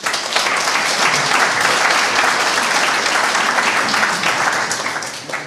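Audience applauding, starting suddenly after a talk ends and dying away near the end.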